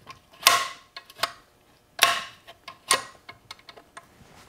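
Ford Toploader four-speed's reverse sliding gear and shift rail moved back and forth by hand in the bare cast-iron case to check the shift action, the fork riding the rail's detent notches. Three sharp metallic clacks with a brief ring, about half a second, two seconds and three seconds in, among lighter clicks.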